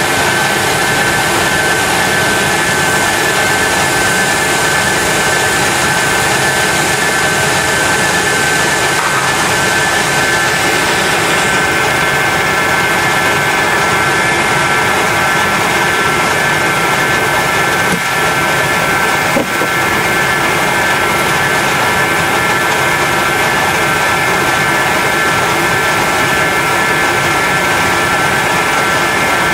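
6LN-120 rice huller running steadily while milling, a loud even mechanical rush with a steady high whine over it.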